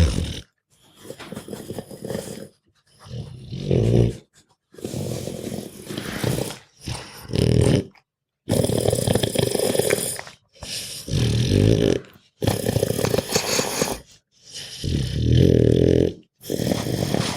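Sleeping pug snoring and grunting: a run of rasping, snorting breaths, each about one to two seconds long with short pauses between.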